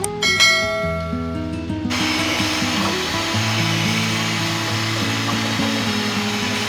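Background guitar music, with a steady rushing, hiss-like noise over it from about two seconds in until near the end.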